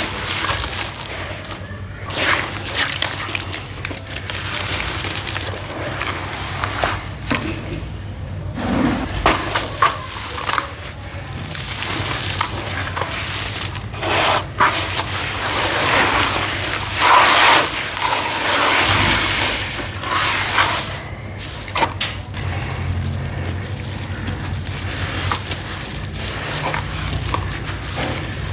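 Packed sawdust and sand crumbling into water: a noisy splashing wash that swells and fades in uneven surges.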